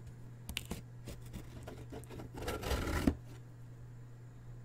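Packing tape being cut and a cardboard shipping box being opened: a few light clicks, then a scratchy rasp of just under a second ending in a click, over a low steady hum.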